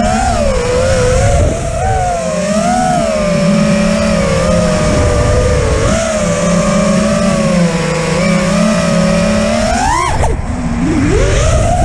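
5-inch FPV quadcopter's brushless motors (XING E-Pro 1800kv) and props whining, the pitch wavering up and down with the throttle. About ten seconds in the whine climbs sharply on a throttle punch, then drops off suddenly.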